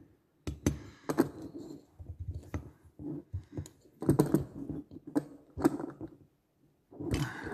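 Irregular clicks and light knocks of a long Torx screwdriver working the screws of a Stihl MS 150 TC chainsaw's crankcase and cylinder, metal tapping on metal as the engine block is turned in the hand.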